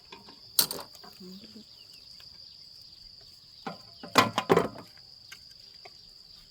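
Insects droning steadily at a high pitch. Loud sharp knocks cut through it, one about half a second in and a cluster around four seconds in.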